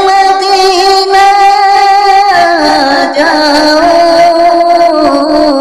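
A man singing a naat, drawing out one long held note with a slight waver, its pitch stepping down about two seconds in and again near the end.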